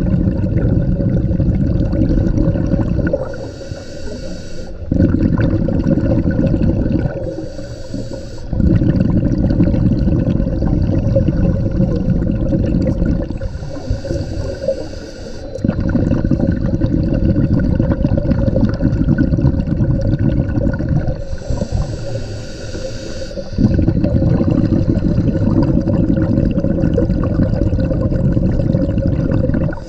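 A scuba diver breathing underwater through a regulator. Long, loud gurgling rushes of exhaled bubbles, five in all, alternate with four shorter, hissing inhales, about one breath every five to seven seconds.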